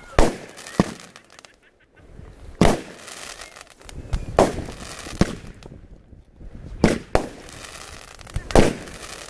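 Fireworks going off: about nine sharp bangs at uneven gaps of half a second to two seconds, with a hissing crackle between them.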